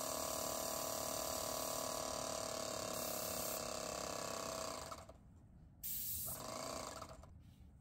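Airless paint sprayer spraying: the tip's steady hiss with the pump running, stopping about five seconds in as the trigger is released, then one short burst of spray about a second later that trails off.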